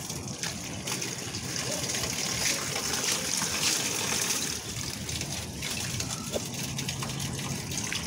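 Pooled rainwater draining down through a cast-iron storm drain grate in a steady trickling gush, the drain running freely once the leaves clogging it have been pulled away.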